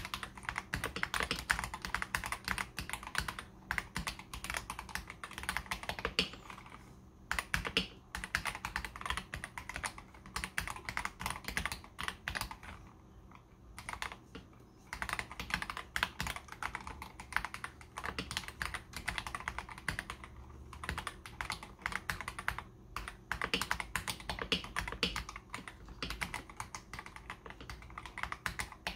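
Continuous typing on a custom mechanical keyboard, a KBD67 Lite R3 fitted with stock, unlubricated AKKO CS Jelly White linear switches and ASA low-profile keycaps: rapid runs of key clacks broken by brief pauses.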